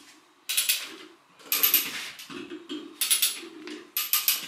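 A ratchet mechanism clicking in four quick bursts about a second apart, each burst a rapid run of clicks.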